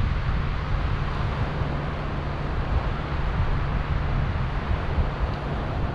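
Wind buffeting the microphone with a steady low rumble, over a constant hiss of surf breaking along the shore.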